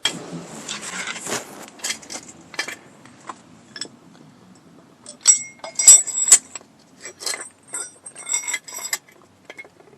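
Metal hand tools clinking and clattering together as they are rummaged through, with a dense clatter at first and a handful of loud, ringing metallic clinks around the middle and after.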